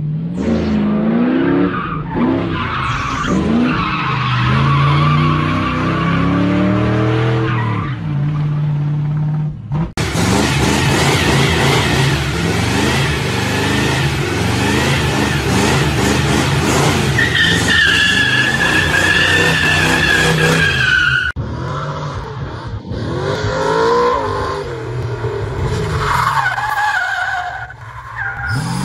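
Pickup trucks drifting and doing a burnout: engines revving up and down and tyres squealing on pavement. The sound changes abruptly twice. The loudest, steadiest high tyre squeal comes about two thirds of the way through.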